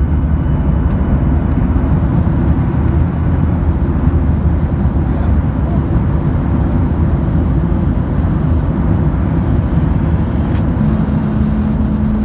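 Cabin noise of a Boeing 737-900ER rolling on the runway after landing: a loud, steady low rumble from its CFM56-7B engines and from the wheels on the runway. About eleven seconds in, a steady low hum joins it.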